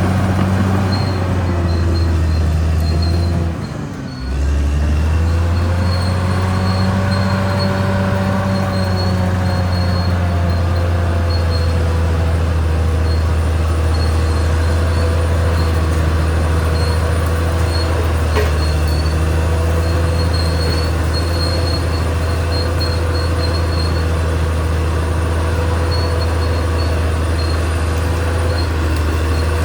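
Caterpillar D6R XL bulldozer's diesel engine running steadily under load. About four seconds in, the level drops and the pitch sags briefly, then both come back up. A faint high squeal comes and goes throughout.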